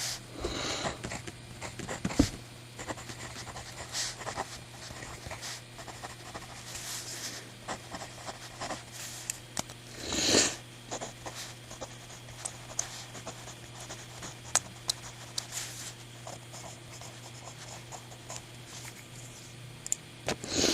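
Mechanical pencil writing on paper: light scratching strokes and scattered small clicks, with a short louder rushing noise about ten seconds in.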